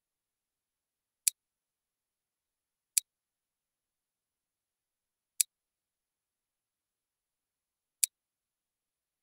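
Four single computer mouse clicks, unevenly spaced, with silence between them: the on-screen arrow being clicked to turn the view of the model.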